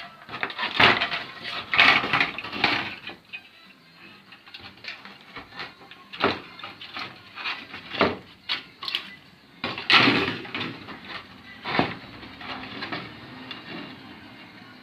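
Parts taken out of a car door being handled: a series of knocks and clatters of metal and wood pieces against each other and a hard surface, loudest about a second in, two seconds in and around ten seconds in.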